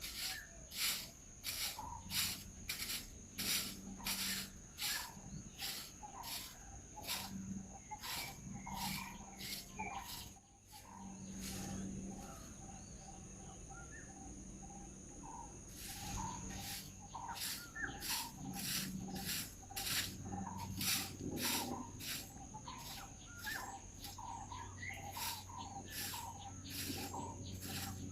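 Insect chorus: a steady high-pitched trill under a regular pulsing call, two or three pulses a second, which stops for a couple of seconds midway and then resumes.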